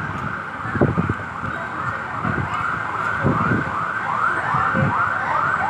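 An emergency vehicle's siren going in a fast yelp, about three rising-and-falling sweeps a second, growing louder toward the end.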